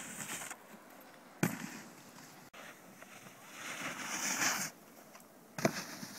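Snowboard edges scraping and hissing over packed snow, with a longer, louder scrape in the middle and two sharp knocks, one about a second and a half in and one near the end.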